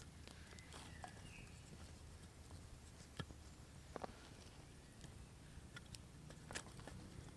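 Faint, scattered light ticks and soft knocks over a low steady hum, like small movements in leaf litter and twigs.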